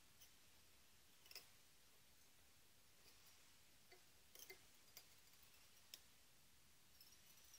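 Near silence: quiet room tone with a few scattered faint clicks, small handling noises of fingers winding thread and feathers onto a hook clamped in a vise.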